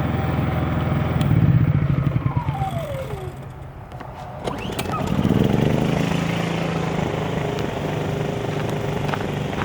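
Honda EU3000is inverter generator being switched off, its engine winding down with a falling whine. Then a Ryobi RYi2200 inverter generator is pull-started, catches about five seconds in, and runs steadily.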